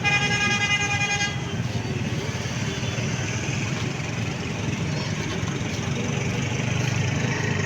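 A vehicle horn blares for about a second at the start, over steady road traffic.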